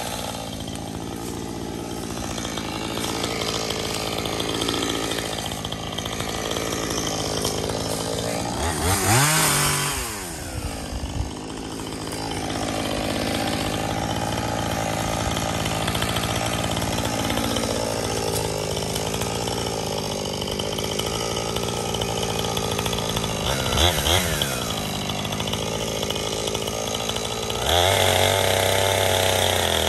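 Husqvarna 460 Rancher two-stroke chainsaw running and cutting into a tree trunk. The engine note is steady, with a quick rev up and back down about a third of the way in and again later, then it is held at high revs near the end.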